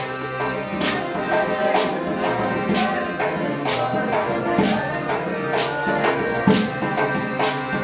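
Ossetian folk song sung by a small group, with hand-clapping and a frame drum keeping an even beat of about one strike a second.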